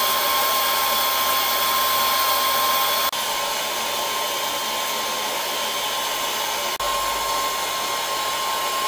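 Longer B1 30W diode laser engraver running while it engraves stone: a steady airy whirr of its fans and air flow with a thin, steady whine. There are two brief dropouts, and the whine is missing between them.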